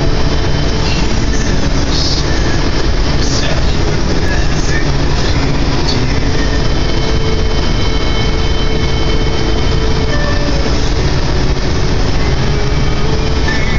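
Steady loud rumble and hiss inside a semi-truck's cab at highway speed: engine, tyre and wind noise with no breaks.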